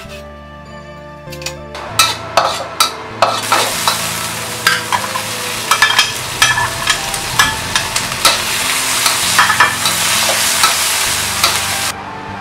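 A few knife chops on a cutting board, then beef tendon strips with carrot and green pepper stir-frying in a wok from about two seconds in. The oil sizzles steadily while the spatula clacks and scrapes against the wok, and it cuts off abruptly near the end.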